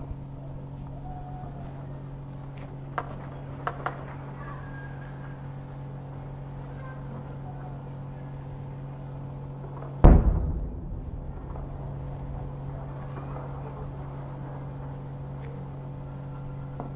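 Shelling: a heavy explosion about ten seconds in, a sudden boom that rumbles away over a second or so, with another starting near the end. A few sharp, distant gunshot cracks come a few seconds in, over a steady low hum.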